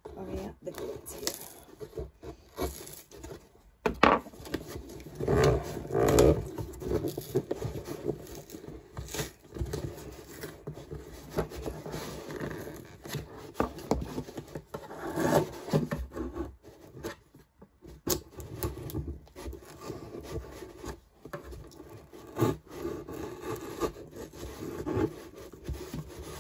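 Corrugated cardboard box being handled and pried open by hand: irregular rubbing, scraping and knocks of cardboard, with a few louder moments, as the sealed flaps resist opening.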